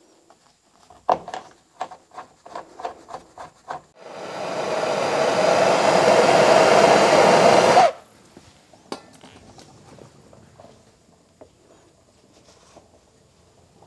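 An electric power tool's motor whirs steadily for about four seconds, building up as it starts and then cutting off abruptly. Before it comes a quick string of light clicks and knocks.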